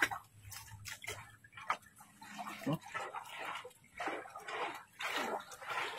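Shallow muddy pond water sloshing and splashing under a hand, a string of soft, irregular swishes, as a man gropes for fish under a mud bank.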